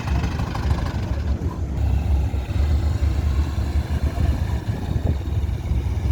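Heavy truck engine running steadily with a low rumble.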